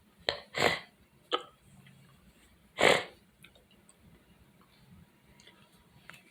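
A person sneezing: a few short, sharp catches of breath, then one loud sneeze about three seconds in.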